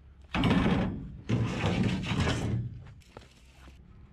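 A length of steel 2x4 box tubing sliding and scraping out of a pickup truck bed, in two long scrapes. A couple of light clicks follow near the end.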